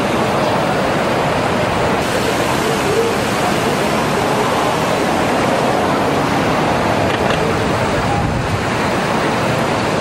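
Steady street noise from traffic on a busy multi-lane road, heard as an even roar with no single event standing out.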